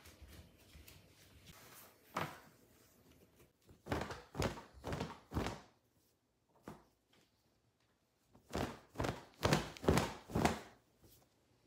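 Clothes being handled and folded on a table: short rustles and flaps of cloth, a few in quick succession near the middle and a longer run of them near the end.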